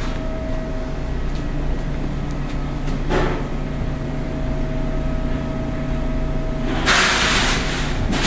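Steady low mechanical hum with a faint high whine over it. A short hiss comes about three seconds in, and a louder rush of hiss lasts about a second near the end.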